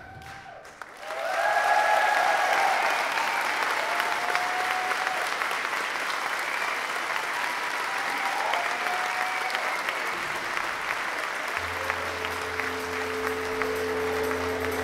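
Theatre audience applauding with a few shouted cheers as a stage dance ends. About eleven seconds in, soft new music with long held notes starts beneath the applause.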